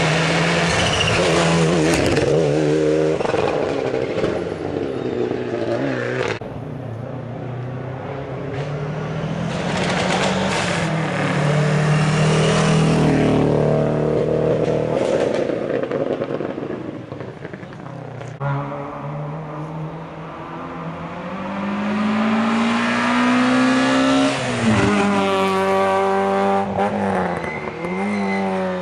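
Rally car engines revving hard as the cars pass. The pitch rises through each gear and drops sharply at each shift or lift-off, with a long climb in revs late on.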